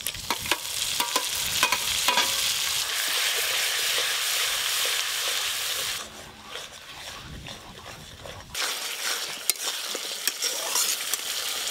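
Grated tomato sizzling as it hits hot oil and spice paste in a metal wok, with a metal spatula clicking and scraping against the pan as it is stirred in. The sizzle drops away for a couple of seconds about halfway through, then comes back.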